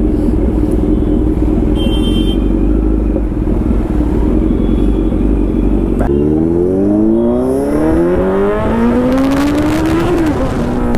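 Sport motorcycle engine heard from the rider's seat, running steadily in traffic. From about six seconds in it accelerates hard, the engine note rising through the revs, and the note drops back near the end as the rider shifts up.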